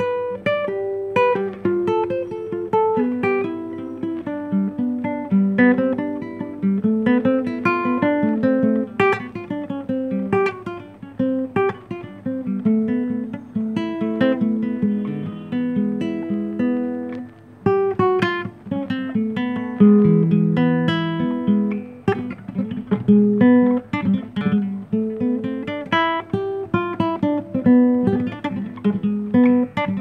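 Solo nylon-string classical guitar, fingerpicked: a continuous melodic piece of quick single plucked notes in rising and falling runs, with a brief break a little past halfway.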